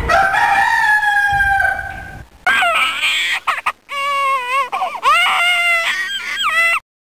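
A rooster crowing: one long call of about two seconds, then a run of shorter calls that waver and bend in pitch. It starts and cuts off abruptly.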